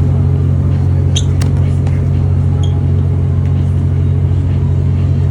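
Steady low machinery hum and rumble, even and unbroken, with a couple of faint light clicks about a second in.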